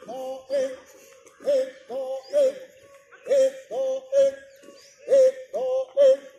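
A man's voice chanting a marching cadence for a squad of drilling police recruits, sung calls in groups of three about every two seconds, with boots stamping in step.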